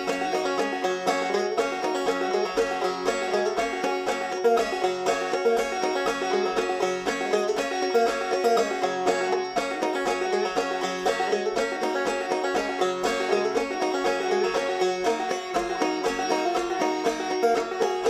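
Instrumental bluegrass-style music led by a fast-picked banjo, with a steady beat.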